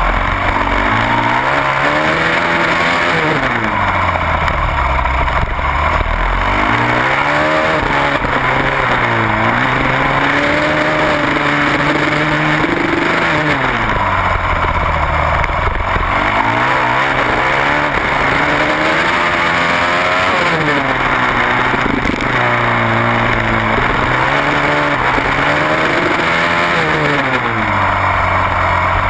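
Single-cylinder supermoto motorcycle engine at race pace, its pitch climbing and dropping over and over as it accelerates through the gears and backs off for corners, over a constant rush of wind noise.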